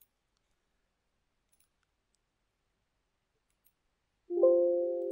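Near silence with a couple of faint mouse clicks, then about four seconds in a single chime sounds suddenly: a chord of several steady notes that fades away over the next two seconds.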